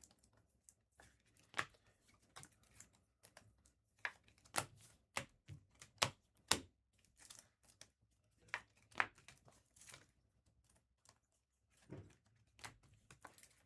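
Trading cards and their plastic and foil packaging being handled at close range: irregular sharp clicks and snaps with light crinkling, the loudest cluster about five to seven seconds in.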